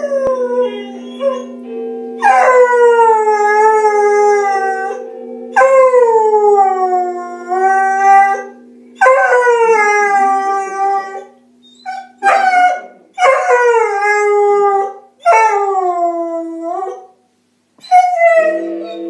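A beagle howling along to Big Ben's bell striking on the radio: a run of long howls, each sliding down in pitch, over the steady ringing hum of the bell. The hum fades out about halfway through, and a fresh bell stroke rings in near the end.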